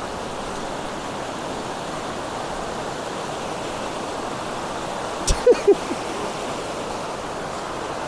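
Shallow mountain stream rushing and splashing over boulders and stones: a steady, full water noise. About five seconds in, a brief sharp sound cuts through it.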